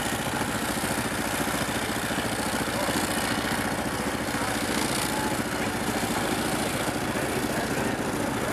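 Small engine of a six-wheeled amphibious ATV running steadily as it drives through muddy water.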